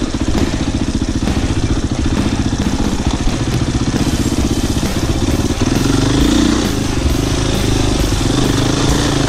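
Enduro motorcycle engine running, picking up revs and getting louder a little past halfway.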